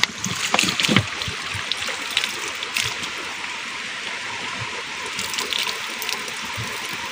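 Water running from a spring spout and splashing onto rock, while a plastic bottle is rinsed and emptied under it. There are a few sharper splashes and knocks in the first second.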